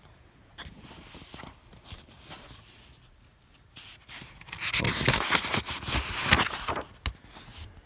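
Paper book pages being turned and rustled by hand, with a few sharp handling knocks; the rustling is light at first and loudest about five to seven seconds in.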